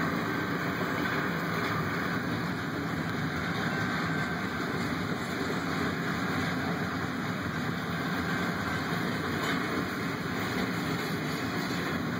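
Double-stack intermodal container freight train rolling past a grade crossing: the steady, even noise of its wheels on the rails, with no break or change.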